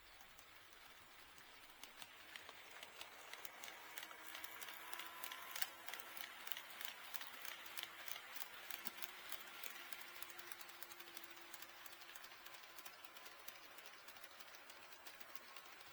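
HO-scale model train running on KATO Unitrack, its wheels clicking rapidly over the rail joints as it passes. It grows louder from about two seconds in, is loudest about five seconds in, then slowly fades away.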